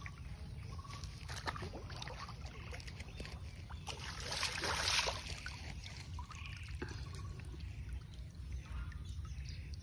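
Shallow pond water splashing and trickling as a person wades in and hauls a cast net toward the bank, with a louder rush of splashing about halfway through. A steady low rumble sits underneath.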